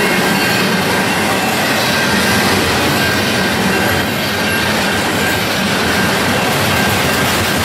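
Double-stack intermodal freight train rolling past close by: a steady rumble and rattle of steel wheels on rail and well cars, with a faint, thin, steady wheel squeal under it.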